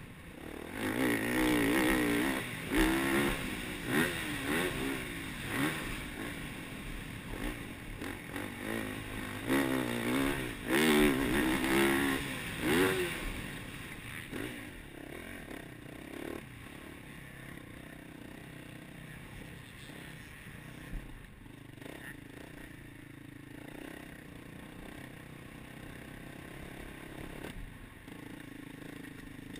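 Yamaha YZ450F four-stroke single-cylinder motocross engine heard from the onboard camera, revving hard with its pitch rising and falling as the throttle opens and shuts. About 14 seconds in it drops to a quieter, steadier low-throttle run.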